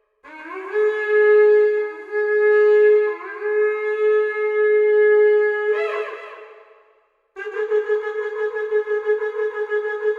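Shofar blown: a long held blast that slides up into its note at the start and ends in an upward flourish about six seconds in. After a short pause, a second blast follows, broken into rapid short pulses.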